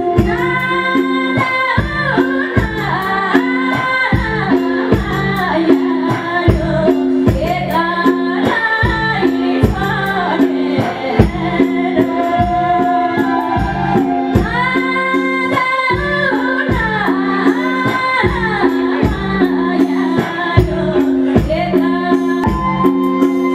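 A woman singing an old-style Nepali folk song into a microphone, with a live band behind her and a steady percussion beat underneath.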